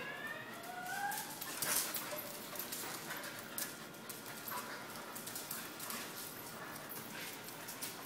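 Two seven-month-old Australian Shepherds play-wrestling: one gives a short rising whine about a second in, then scuffling with many sharp clicks of paws and claws on the concrete floor.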